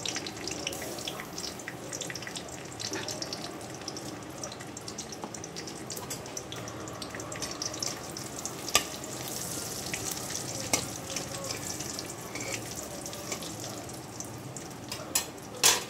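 Ghee sizzling and crackling steadily in a pan with bay leaves frying in it. A spatula taps and scrapes the pan now and then, with a sharp click about nine seconds in and a couple of loud knocks near the end.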